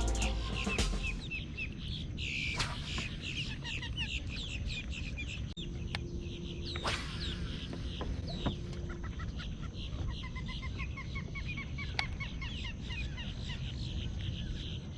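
Many birds calling at once: a dense chorus of short, quick chirps, with a faster run of chirps partway through and a few sharp clicks.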